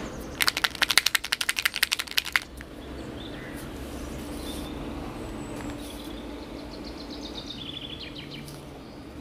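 A white paint marker shaken hard for about two seconds, its mixing ball rattling inside in quick clicks, about ten a second, to mix the paint before use.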